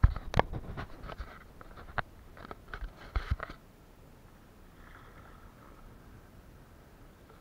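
Knocks and taps on a kayak, a quick irregular run of about a dozen sharp strokes over the first three and a half seconds, then only a faint steady background.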